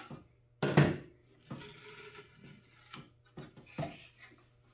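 Hands and a hobby knife working a screw-on hatch free on a balsa RC plane fuselage. A sharp click, then a knock, then about a second of scraping and a few light taps.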